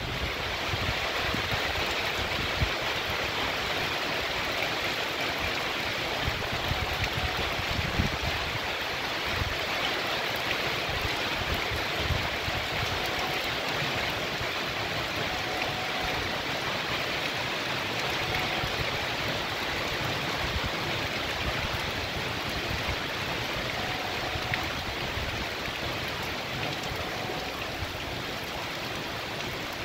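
Heavy rain pouring steadily onto a paved street and trees, with runoff water rushing along the street and into a storm drain, making a constant, even hiss.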